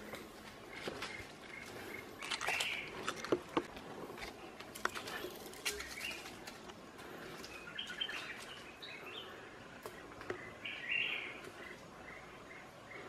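Wild birds chirping: a run of short repeated chirps with several louder clusters of calls. Scattered sharp clicks and rustles from bare hands and feet on rock and dry leaf litter, mostly in the first few seconds.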